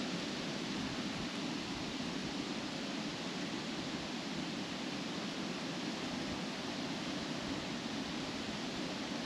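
Wind blowing steadily through trees, the leaves rustling.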